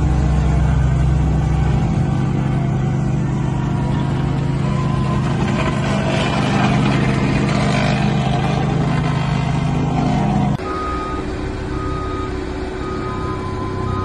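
Engines of asphalt paving machinery running steadily with a low drone. About ten and a half seconds in, the sound cuts abruptly to other construction machinery with a reversing alarm beeping about once a second.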